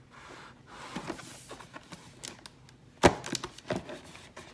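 Hands handling a cardboard shipping box, with scattered light scrapes and taps and one sharp knock about three seconds in.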